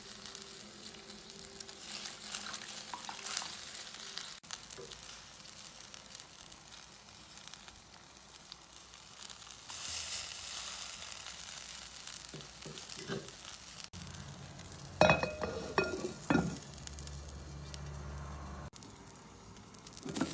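A tiny king quail egg frying in hot oil, a steady quiet sizzle, with a few short clinks or scrapes about three-quarters of the way through.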